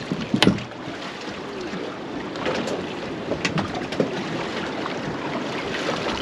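Wind and water noise around a small open boat, with a few sharp knocks and clicks, the loudest about half a second in.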